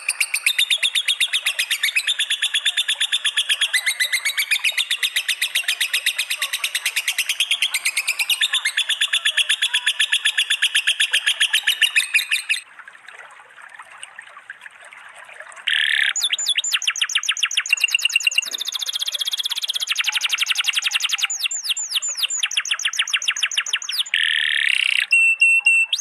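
Caged-songbird training recording: rapid, fast-repeating trills and chatter. About halfway through it breaks off into a quieter stretch for some three seconds, then the trilling resumes.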